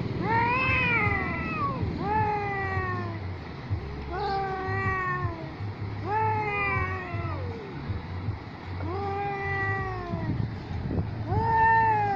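Cats yowling in a territorial standoff: about six long caterwauls, each arching up and then falling in pitch, roughly two seconds apart.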